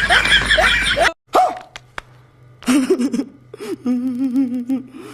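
Background music that cuts off suddenly about a second in. After a short pause, a voice hums with a wavering pitch.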